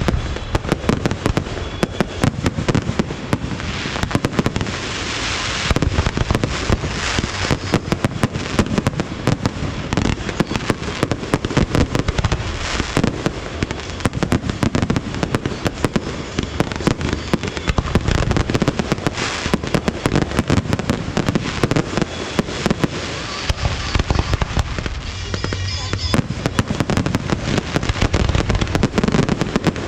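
Fireworks display: a dense, unbroken barrage of bangs and crackles, many a second.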